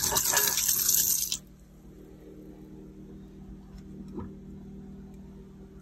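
Water running from a galley faucet into a stainless steel sink, shut off abruptly about a second and a half in. A steady low hum follows, with a faint knock about four seconds in.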